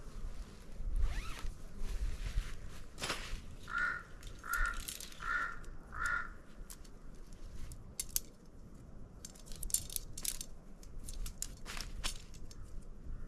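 Camping gear being handled: scrapes, rustles and clicks, busiest in the second half. A few seconds in come four short high notes, evenly spaced about two-thirds of a second apart.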